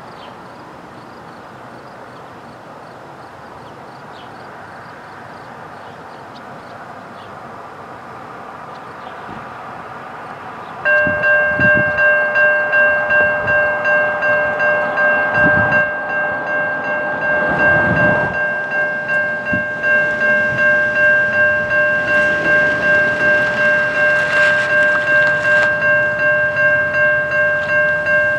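A railway crossing bell starts ringing about eleven seconds in, at about two strokes a second, over the building rumble of an approaching freight train powered by two EMD SD60 diesel locomotives.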